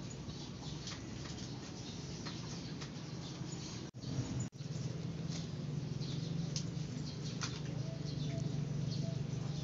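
Newborn kittens making faint, high, short squeaks and soft mews over a steady low hum. The sound drops out twice briefly about four seconds in.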